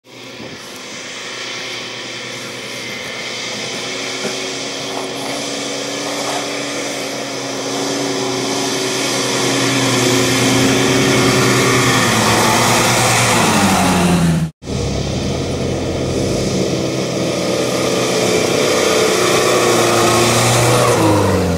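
UAZ-469 off-road jeep engines working through mud. The engine grows louder as the jeep approaches, and its revs drop about twelve seconds in. After an abrupt cut, a second UAZ is heard driving, its revs falling near the end.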